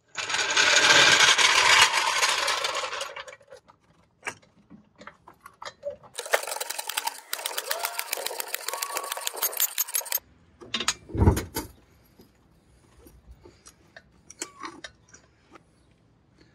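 Metal work noises of a car being raised on a steel floor jack and set onto jack stands. A rush of noise for about three seconds, then rapid even clicking for about four seconds, then a single heavy thump a second later, followed by a few light knocks.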